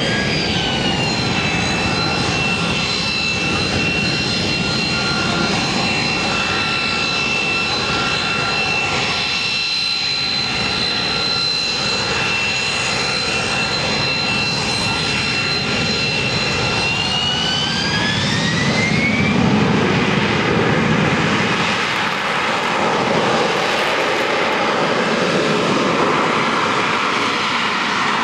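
Harrier jump jet's Pegasus turbofan running at high power: a loud roar with a steady high whine. About two-thirds of the way through, the whine rises sharply in pitch and the roar swells as the engine spools up to full thrust for a vertical takeoff.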